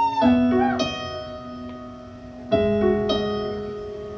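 Keyboard playing slow piano chords, each struck and left to ring and fade, with a new chord struck about two and a half seconds in.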